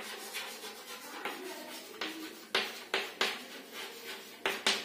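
Chalk writing on a blackboard: a string of short, sharp taps with light scratching strokes between them as letters are written.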